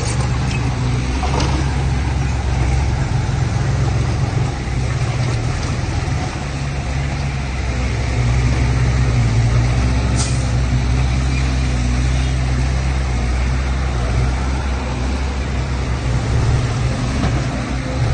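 Heavy diesel engine of earthmoving or haul equipment running steadily with a low drone, with a brief hiss about ten seconds in.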